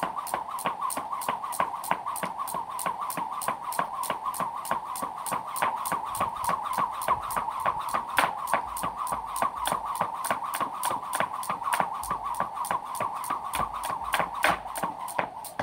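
Jump rope slapping the ground in a quick, even rhythm, several strikes a second, over a steady wavering whir.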